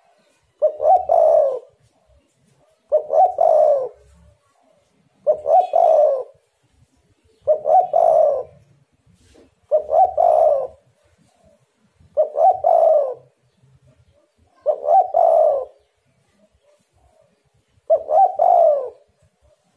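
Spotted dove singing its cooing song over and over: eight short phrases of a few coos each, one about every two and a half seconds.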